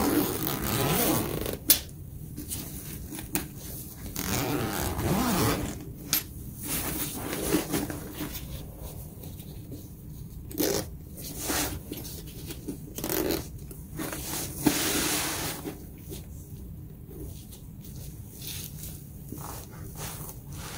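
Zippers of a soft fabric tool case being pulled open in several runs, with fabric handling noise in between and a couple of sharp clicks.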